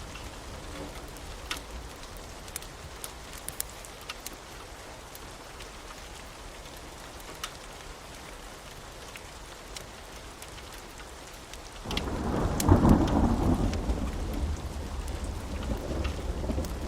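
Steady rain with scattered drips ticking, then thunder breaks about twelve seconds in and rumbles on, much louder, to the end.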